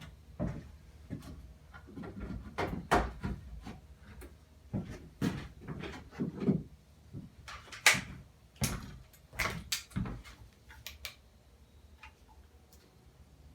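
Irregular knocks, clicks and rattles of tractor engine parts and wiring being handled and worked by hand, with louder knocks about 3 and 8 seconds in, tapering off near the end.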